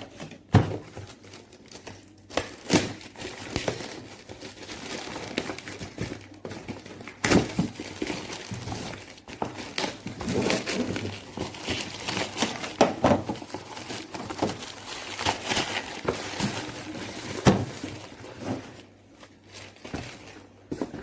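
Plastic packaging crinkling as it is handled, with frequent clicks and a few sharper knocks.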